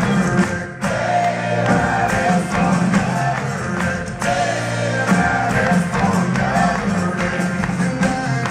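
Live rock band playing: a man singing lead over strummed acoustic guitar, electric bass and drums, with two brief drops in the music, about a second in and again about four seconds in.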